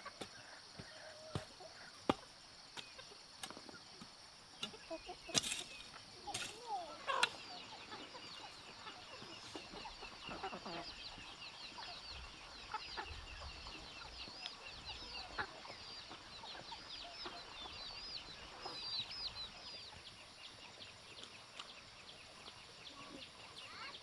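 Chickens clucking and calling, with a long run of short high chirps through the middle. Several sharp taps come in the first third, and a faint steady high insect drone sits underneath.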